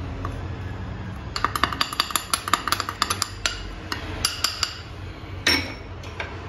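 A small ceramic bowl knocked quickly and repeatedly against a plastic sieve over a glass mixing bowl to shake flour out, a rapid run of light ringing taps. One sharper clink follows near the end.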